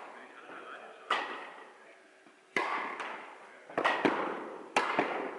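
Tennis rally: sharp pops of a tennis ball struck by rackets and bouncing on the court, several in a row with a quick cluster near the end, each ringing on in the large indoor hall's echo.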